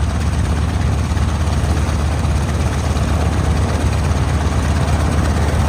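Grumman F8F Bearcat's Pratt & Whitney R-2800 radial piston engine running steadily at low power, a deep even rumble.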